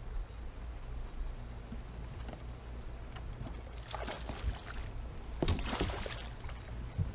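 A hooked largemouth-type bass thrashing and splashing at the water's surface beside the boat as it is reeled in, in two bursts about four and five and a half seconds in, over a steady low rumble.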